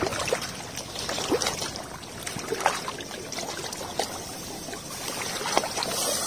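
Water sloshing and splashing irregularly as a person in chest waders wades step by step through shallow floodwater thick with weeds.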